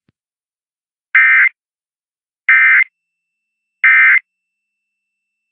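Emergency Alert System end-of-message signal: three short bursts of digital data screech, evenly spaced about a second and a half apart, marking the end of the test message.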